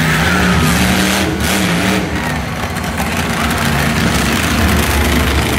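Monster truck engine revving and running, its pitch rising and falling in the first couple of seconds, then settling to a steadier rumble.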